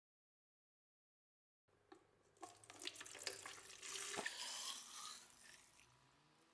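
Rust remover liquid poured from a bottle into a plastic cup around a rusty knife blade, splashing into the cup from about four seconds in and tailing off near the end. It is preceded by a second and a half of silence and a few light clicks.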